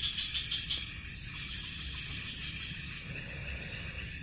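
Night-time chorus of forest insects: a steady high-pitched buzz, with a short run of quick chirps in the first second.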